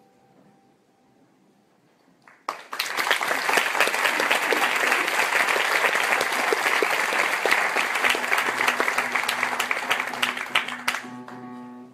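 Faint last notes of the song's accompaniment fading in the quiet first two seconds, then audience applause that breaks out suddenly about two and a half seconds in and thins out near the end.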